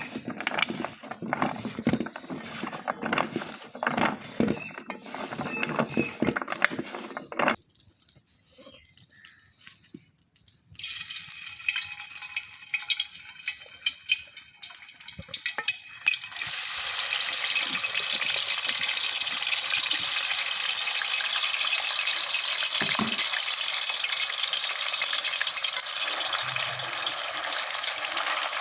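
Irregular clattering and handling knocks, then a lull, then from just past halfway a steady rush of running water, as from a tap or a stream of water being poured.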